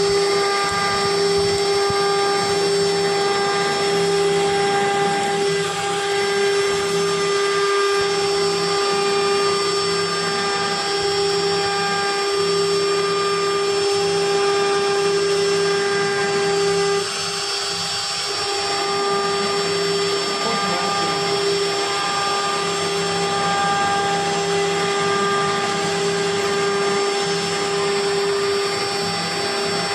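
CNC machine cutting, its spindle running with a steady whine over a noisy cutting hiss. The level dips briefly about seventeen seconds in, then carries on.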